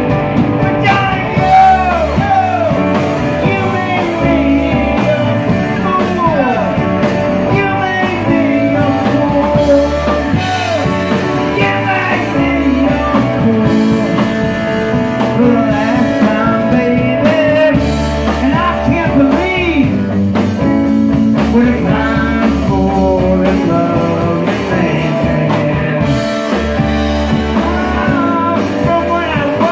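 Live rock-and-blues band playing loudly: a man singing over electric guitar, bass guitar, keyboard and a Ludwig drum kit.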